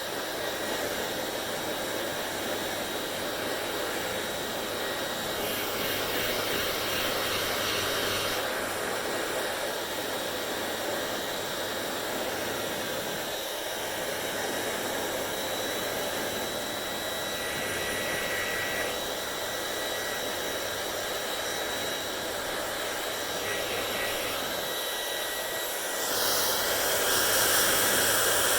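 Hair dryer blowing: a steady rush of air with a faint high whine. It grows louder near the end.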